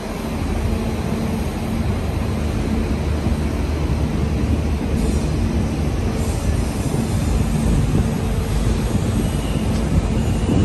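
A vehicle running with a steady low rumble and a steady hum.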